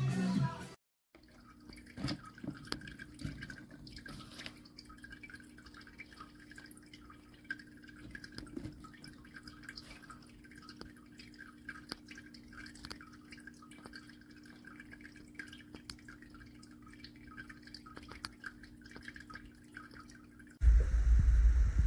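Small tabletop rock fountain: water trickling and dripping with many small irregular drips, over a steady low hum from its pump. A much louder low rumble cuts in suddenly near the end.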